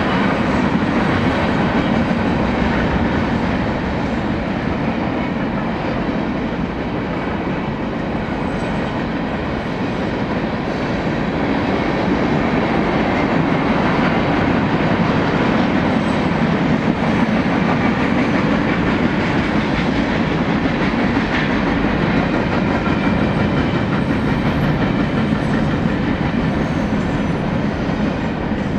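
Freight cars of a long mixed freight train (tank cars, boxcars and covered hoppers) rolling past: a steady noise of steel wheels running on the rails.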